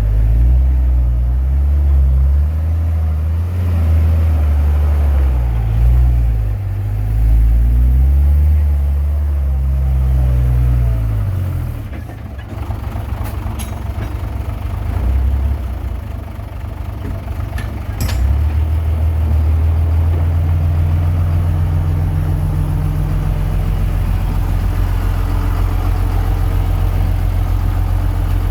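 Komatsu D21P bulldozer's diesel engine working under load, its pitch rising and falling repeatedly for the first dozen seconds. It then drops back, with a couple of sharp clicks, and settles into steady running for the last third.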